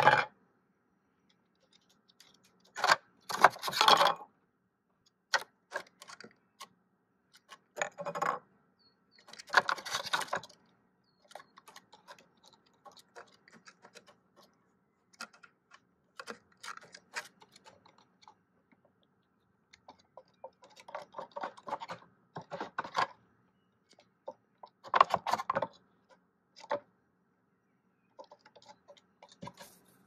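Hooded crow working at a wooden puzzle feeder: plastic cones and lids and the wooden board clatter, knock and scrape in irregular spells, with scattered light ticks in between.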